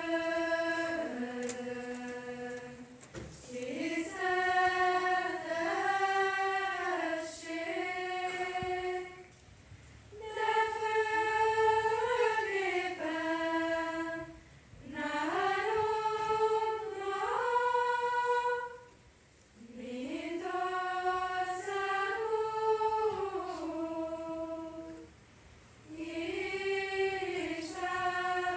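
Girls' chamber choir singing a cappella, in phrases of a few seconds separated by short pauses.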